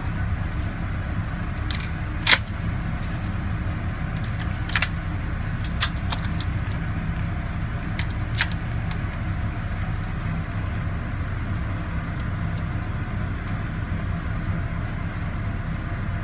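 Shells being pushed into the tube magazine of a 12-gauge Mossberg 500A pump shotgun, several sharp metallic clicks in the first eight seconds or so, over a steady low hum.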